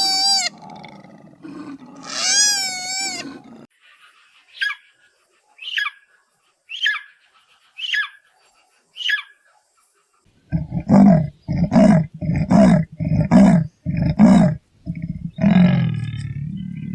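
Animal calls in quick succession. First come two wavering high-pitched calls, then five short falling chirps about a second apart. Then a rhythmic run of seven loud, deep calls, ending in one longer call.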